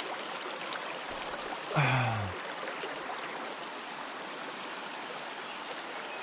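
Steady rushing of a small mountain stream flowing over rocks. About two seconds in, a short voice exclamation falls in pitch.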